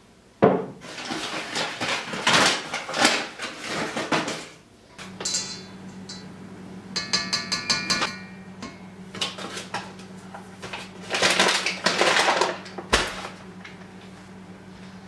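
Kitchen handling noises: a sharp knock about half a second in, then a metal measuring cup scooping and clinking against a stainless steel mixing bowl, with a paper flour bag rustling, as dry ingredients are measured into the bowl. A faint steady low hum sits under the second half.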